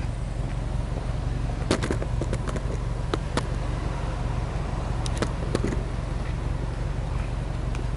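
Subaru Impreza WRX STI (GDB) with its EJ20 turbocharged flat-four idling steadily at a low rumble through the exhaust. A few sharp clicks come about two seconds in and again about five seconds in.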